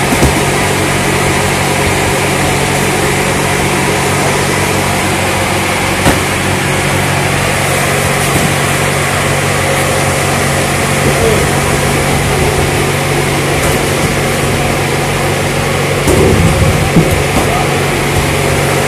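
Steady drone of running machinery, a constant low hum. A few dull thumps of cardboard cartons being handled sound over it, one about six seconds in and a cluster near the end.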